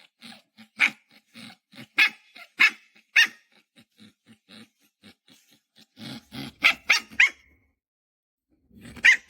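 Puppy barking in short, sharp yaps, with low growling between them. They come in a run over the first three seconds, fade to small sounds, then come again in a cluster about six to seven seconds in and once more near the end.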